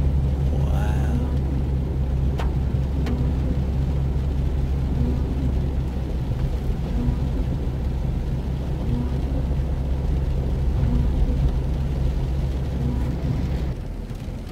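Inside a Jeep's cabin while driving slowly on wet roads: a steady low engine and road rumble with tyre hiss. The rumble drops off near the end as the vehicle slows to a stop.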